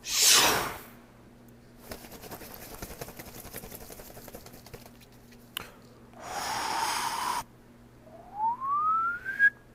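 A string of cartoon sound effects: a loud whoosh at the start, a few seconds of faint crackling, a click, a short burst of hiss, then a single whistle-like tone sliding upward near the end.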